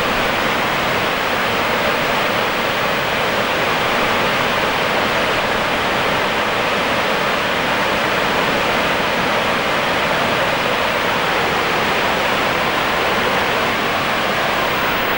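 The Merced River pouring over Nevada Fall and rushing down the rocky cascade below it: a steady, unbroken rush of falling water.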